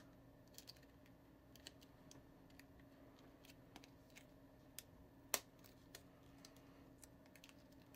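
Faint small clicks and ticks of a plastic toy fishing hook being worked free of its card, over near-quiet room tone, with one sharper click about five seconds in.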